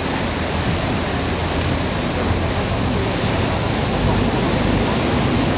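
Water rushing and splashing along the hull of a moving boat, a steady even wash, with the low steady hum of the boat's engine beneath.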